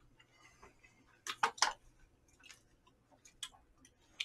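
Eating sounds of someone chewing a mouthful of jjamppong noodles: scattered faint clicks and smacks, with a quick run of three sharp clicks about a second and a half in.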